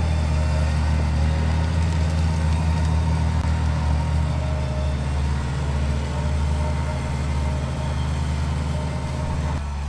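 A vehicle engine idling steadily close by, a deep even rumble.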